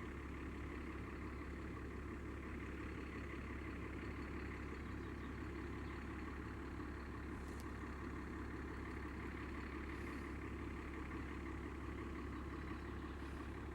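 A steady, unchanging low drone, like a distant engine running.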